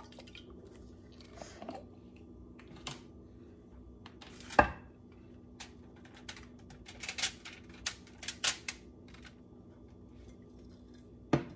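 Scattered light taps and clicks as marinara sauce is shaken out of a glass jar onto a foil-lined baking pan, with one sharp knock about four and a half seconds in and a run of quick taps a little later.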